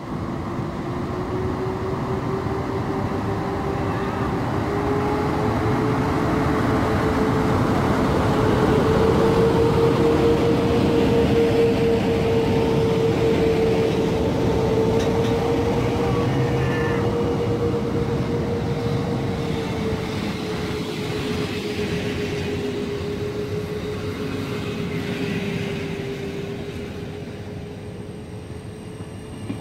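EP09 electric locomotive pulling a passenger train away from the platform and passing close by, with a steady whine that rises a little in pitch and then eases down over the rumble of the running gear. It is loudest as the locomotive goes by about ten seconds in, then the coaches roll past.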